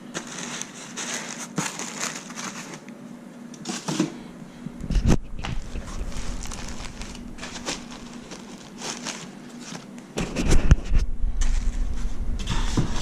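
Protective packing foam and wrapping being pulled off a new laptop: irregular rustling and crinkling with small clicks, and handling bumps about five seconds in and again from about ten seconds in.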